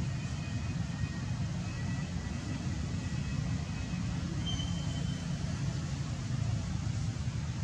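Steady low outdoor rumble with no clear pitch, with a couple of faint short high chirps.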